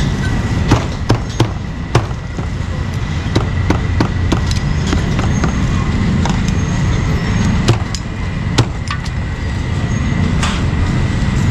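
Irregular sharp knocks of a cleaver chopping meat on a chopping block, over a steady low rumble of street traffic.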